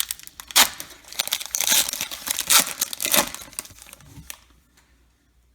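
A trading card pack's wrapper being torn open and crinkled in the hands, in a run of irregular tearing and crackling that dies away about four seconds in.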